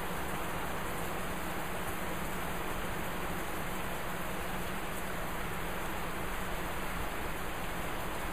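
Steady rain falling in a thunderstorm, an even hiss with no thunder or other sudden sounds.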